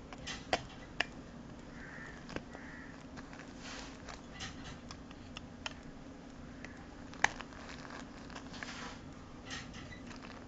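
A handheld mobile phone being handled: a few sharp clicks, the loudest about seven seconds in, and light rustling over a steady low hum.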